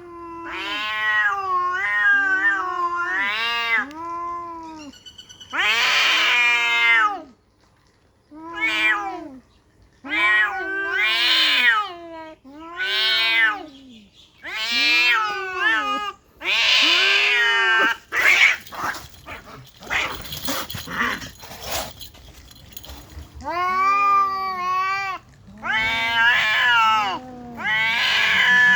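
Domestic cat meowing over and over: about a dozen long, drawn-out calls that arch up and down in pitch, with short pauses between them. A few seconds of scratchy rustling noise come in the middle.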